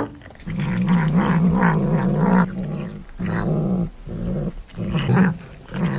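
A tabby cat growling while it bites and eats a sweet potato: several low, wavering growls in a row with short breaks between them, the kind of growl a cat makes when guarding its food.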